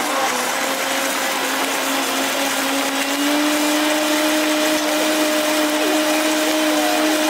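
Countertop blender running at full speed, blending fresh fruit into juice: a steady motor whine that rises a little in pitch and gets slightly louder about three seconds in, then holds steady.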